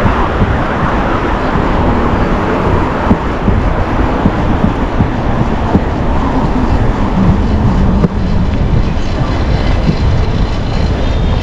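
Loud, steady street rumble with wind buffeting the microphone, heaviest in the low end, with small irregular knocks.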